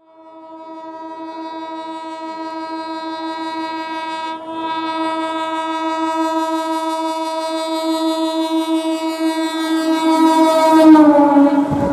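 An electric multiple unit (EMU) local train's horn, held in one long blast that grows louder as the train approaches. About eleven seconds in, its pitch drops as the cab passes.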